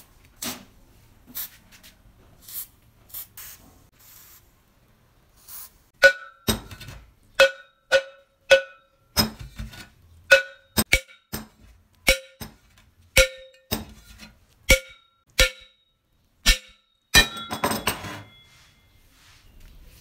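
Hammer striking the rusty flange at the foot of a drill press column to break a seized joint loose: a steady run of sharp metal blows, about two a second, each one ringing. A short clattering rattle follows near the end.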